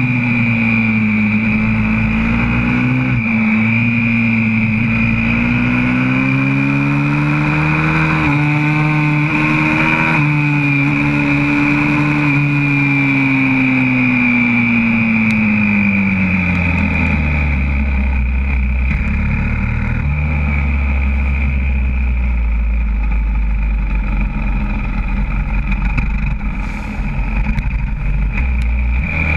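YCF 125cc four-stroke pit bike engine heard from on board, revs rising and dipping with gear changes for about the first half, then dropping to a low, steady run as the bike slows. A steady high whine sits over it throughout.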